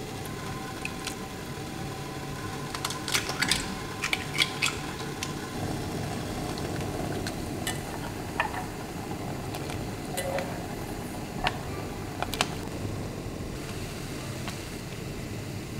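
Cooking in a Le Creuset enamel steel pot: a metal utensil clinks and scrapes against the pot, with a quick run of clicks about three to five seconds in and a few single clicks later, over a steady kitchen hum.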